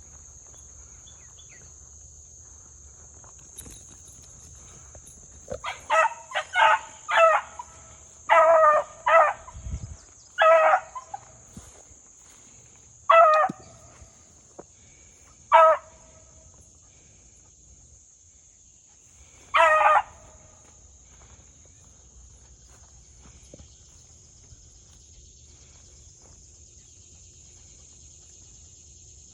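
Beagle pup baying in short chop-mouthed bursts while trailing a rabbit: a quick cluster of bays, then single bays a few seconds apart, about nine in all. A steady high insect buzz goes on behind it.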